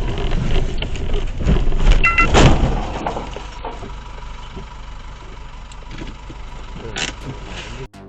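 Motor-vehicle road and engine noise, loudest in the first few seconds with a brief beep about two seconds in and a loud surge just after it, then settling to a quieter steady rumble.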